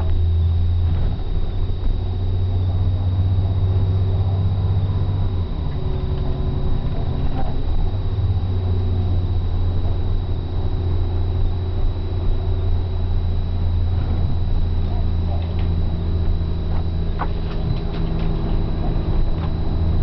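Motor vehicle's engine and road noise heard from inside the cab while driving at speed: a steady low drone that dips briefly about five seconds in, then carries on, with a thin high whine above it and a few light rattles later on.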